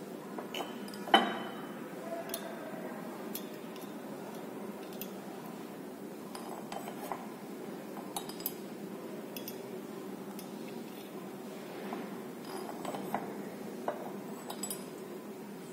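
Glass clinks as a glass dropper knocks against the neck of a glass reagent bottle and the rim of a test tube while potassium permanganate solution is dropped in: one sharp clink about a second in, then scattered lighter clicks. A steady low hum runs underneath.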